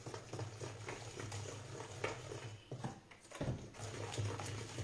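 Hand whisk beating crêpe batter in a plastic bowl: soft, irregular taps and strokes of the whisk against the bowl, over a low steady hum.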